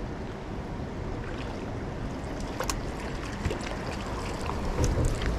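Stream water running steadily, with scattered splashes and knocks in the second half as a hooked brown trout is brought in and landed with a net.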